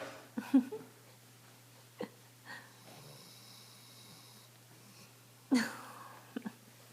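A dog snoring in its sleep, in separate, irregular breaths: a loud one about half a second in, two short ones around two seconds, and another loud one a little past the middle, followed by a couple of quick clicks.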